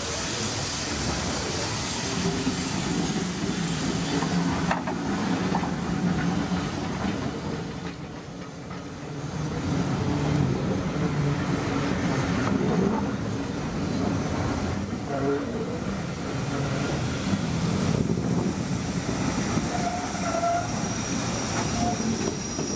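Railway passenger coaches rolling past close by on a curve, their wheels running over the rails with a continuous rumble that dips briefly partway through.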